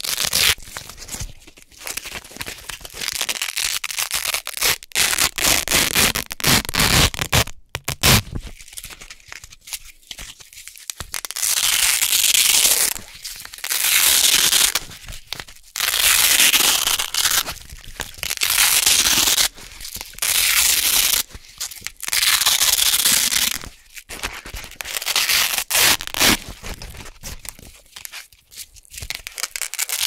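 Wide tan hook-and-loop (Velcro) strips being peeled apart by hand: short, irregular crackling tugs for the first ten seconds or so, then a run of loud rips of about a second each, one every second or two.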